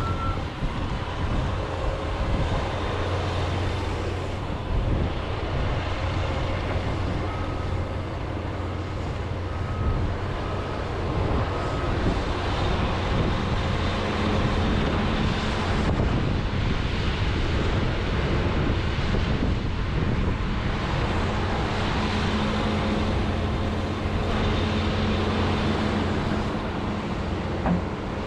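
John Deere 210G excavator running steadily while digging, its diesel engine and hydraulics working under load. A high warning alarm beeps a few times about a third of the way in.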